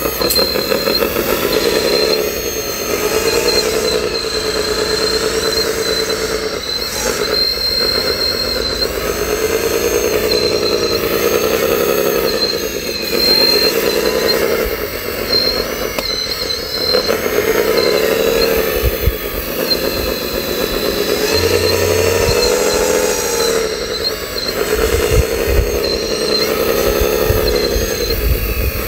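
Radio-controlled wheel loader's electric motors whining as the loader is worked, the pitch rising and falling over and over as the bucket and arm are moved. A few low thuds come in the later part.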